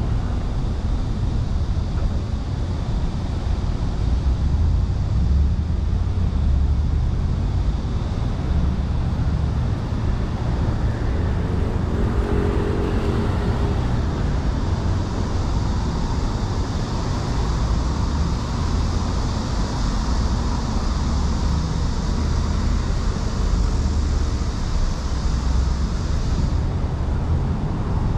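Street traffic: cars passing on a busy city road, a steady low rumble.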